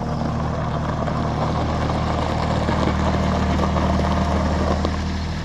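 Bobcat 553 skid steer's engine running steadily, swelling a little louder in the middle.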